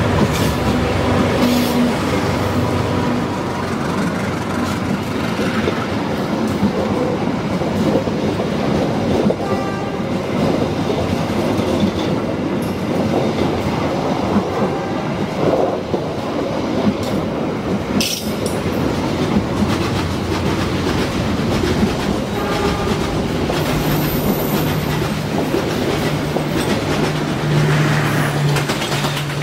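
Passenger train passing close by: the diesel locomotive runs past at the head, then a long line of coaches rolls by with steady wheel clatter and rattling on the rails. A low steady engine tone comes in again near the end.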